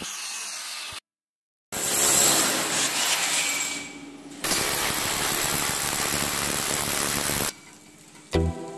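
Electric power tool running in two steady stretches with a thin high whine on top, broken by a sudden cut of dead silence about a second in.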